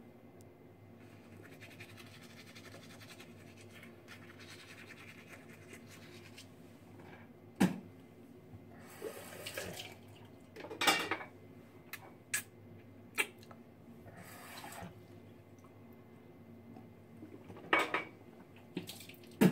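Teeth being brushed with a toothbrush, a faint steady scrubbing. From about eight seconds in come sharp knocks and short splashes of water as the mouth is spat out and rinsed at the sink.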